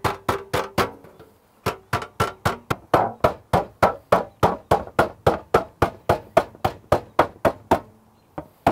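Ball-peen hammer rapidly striking thin copper sheet laid over a roll of duct tape, an even run of about four or five blows a second that dishes the sheet into a bowl. The hammering pauses briefly about a second in and stops shortly before the end.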